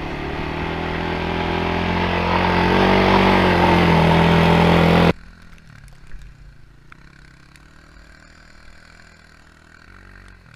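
Quad (ATV) engine revving hard, its pitch and loudness slowly climbing for about five seconds. It then cuts off abruptly, leaving a much quieter stretch with only a faint engine sound.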